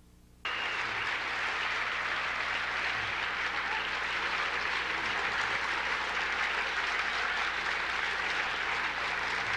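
Large audience applauding, starting suddenly about half a second in and holding steady.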